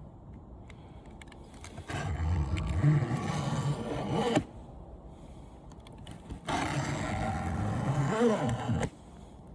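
A box-cutter razor blade dragged through the thin aluminum fins of an air conditioner's condenser coil: two long scraping cutting strokes, each about two and a half seconds, with a squeal of metal in the second.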